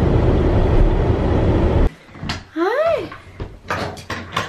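Steady low road and engine rumble inside a car's cabin on a snowy highway, cutting off abruptly about two seconds in. Then a toddler's short rising-then-falling vocal sound, followed by a few sharp clicks and knocks near a door.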